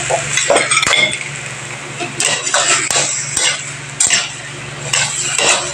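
Metal spatula scraping and knocking against a wide metal wok as pork ribs and broccoli in a little oyster-sauce liquid are stirred, in irregular strokes. A steady low hum runs underneath.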